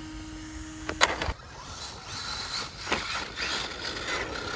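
FTX Zorro brushless RC car running, with a steady whine that ends in a sharp knock about a second in, then scratchy rattling from the car's drivetrain and wheels. It is making a strange noise that the owner suspects is a metal gear grinding on a plastic one.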